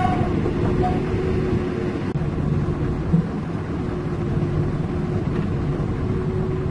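Heavy-equipment diesel engines running steadily: a continuous low rumble with a steady hum. There is one brief thump about three seconds in.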